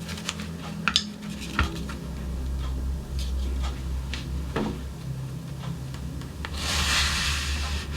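Handling noise: a few light clicks and knocks, then a short rustle about seven seconds in, over a steady low hum.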